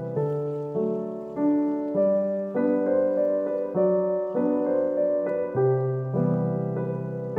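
Background instrumental music: sustained notes and chords, with a new one starting about every 0.6 seconds.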